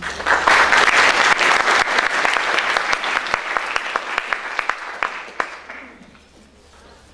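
Audience applauding, starting just after the speaker's closing words and dying away about six seconds in.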